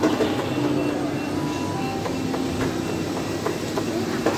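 Shopping-mall background noise: a steady hum with scattered clicks and clatter.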